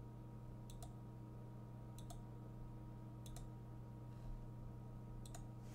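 Computer mouse button clicking four times, each click a quick press-and-release pair, over a faint steady electrical hum.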